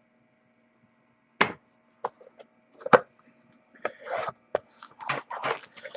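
Trading cards and cardboard packaging being handled. A few sharp taps and knocks come first, then a run of small crackling and rustling noises over the last two seconds.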